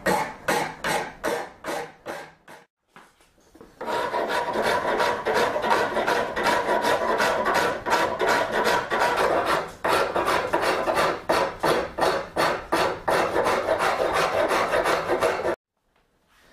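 Hand rasp and file scraping across the wood of a yew recurve bow limb and its tip, in quick even back-and-forth strokes about three a second. A short pause about three seconds in, and the strokes stop abruptly near the end.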